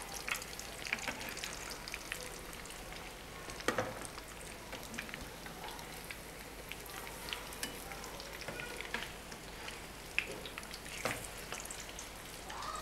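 Potato and chana dal kababs shallow-frying in oil in a pan over a low flame: steady sizzling with constant small crackles. Two louder clicks, about four seconds in and near the end, come as a metal spatula turns the kababs.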